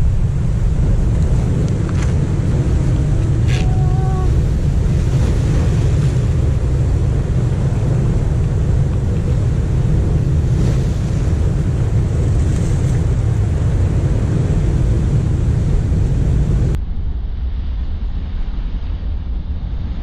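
Wind buffeting the microphone over the steady wash of surf breaking against a rocky shore. Near the end the sound changes abruptly to a duller, slightly quieter rush of surf and wind.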